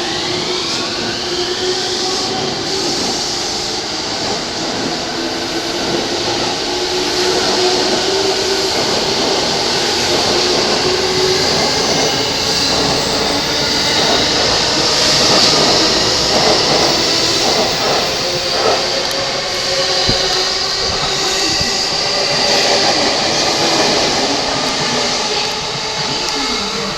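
JR electric commuter train pulling out: the traction motors' whine rises in pitch over the first couple of seconds, then runs on as steady motor tones with wheel and rail noise, growing louder towards the middle, with a few short clicks from the wheels over the track.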